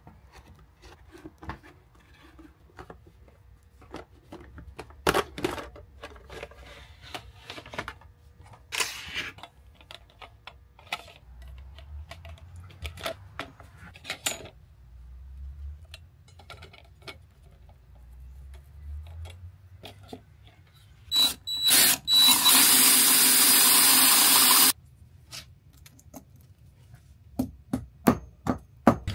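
Scattered clicks, knocks and handling noises, then two short bursts followed by about three seconds of a loud, steady mechanical noise that cuts off suddenly, and a few sharp clicks near the end.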